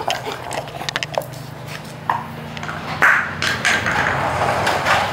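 Irregular sharp clicks and cracks of a Labrador gnawing a dry coconut shell. Under them a motor vehicle's engine drones, growing louder near the end.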